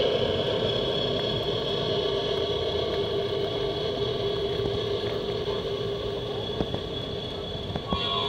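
G-scale model freight train running past on the track, led by a model diesel switcher: a steady mechanical engine-like running sound that slowly fades, with a couple of light clicks near the end.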